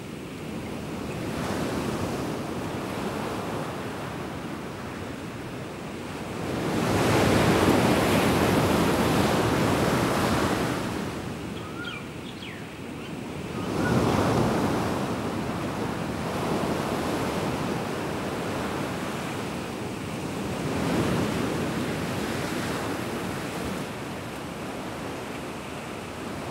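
Sea waves breaking on a rocky shore, the surf swelling and falling back in slow surges, loudest about a quarter of the way in.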